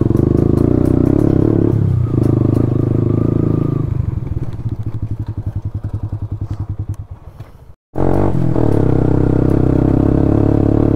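Motorcycle engine running on a rough dirt track. About four seconds in it drops to a slow, evenly pulsing idle that fades away, then after a sudden break it runs steadily again.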